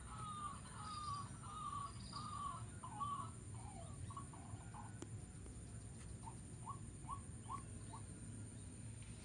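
A bird calling: a string of short slurred notes about twice a second, which fade out, then after a pause a run of short upward-flicking notes near the end, faint over a low steady hum.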